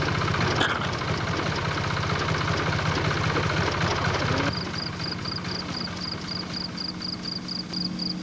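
A car engine idling with an even pulse. About four and a half seconds in, the sound cuts off suddenly to a quieter steady low hum, with a short high chirp repeating about four or five times a second.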